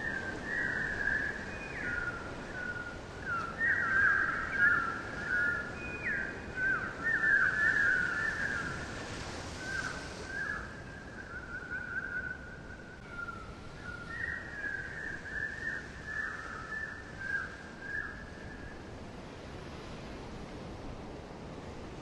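Quick warbling, trilling whistles over a steady hiss, fading out near the end.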